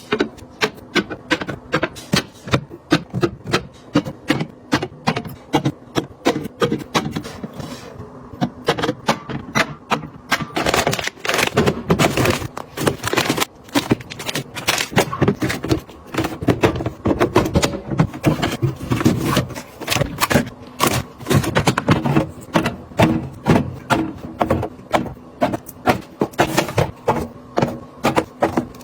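Rapid, irregular clicks, taps and knocks of plastic containers, lids and packaging being handled and set in place while restocking a refrigerator.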